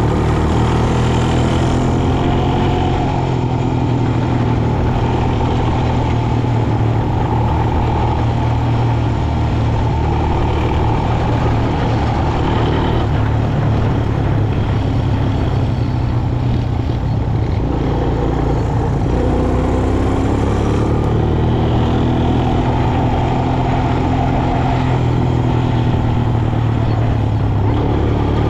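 Quad bike's engine running steadily while being ridden at speed, pitch bending only slightly.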